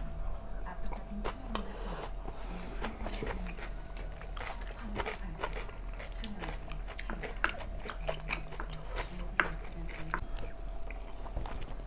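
Close-up eating sounds: people chewing mouthfuls of curry rice, with scattered light clicks of wooden spoons scooping against ceramic plates.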